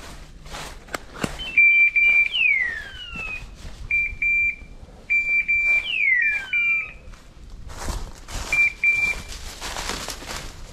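Hunting dog's beeper collar sounding: groups of short, high electronic beeps, each group followed by a falling, hawk-like screech. The pattern plays twice identically, with a few more beeps near the end. Rustling and crackling of movement through brush runs underneath and is heaviest near the end.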